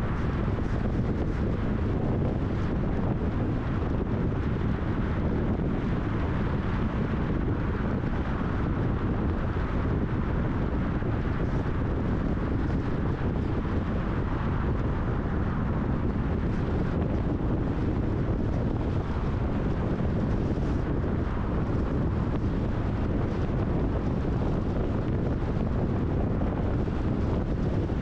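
Steady wind and tyre noise of a car driving on a highway, with wind buffeting the microphone.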